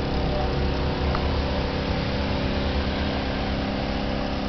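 Steady outdoor noise: an even hiss with a low rumble and a constant hum underneath.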